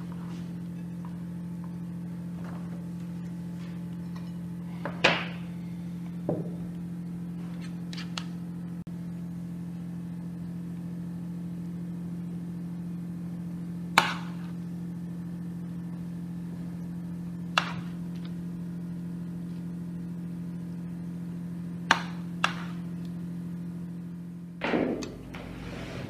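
Steady low hum with a handful of sharp knocks and clinks of kitchenware being handled, the loudest about halfway through and a short clatter near the end.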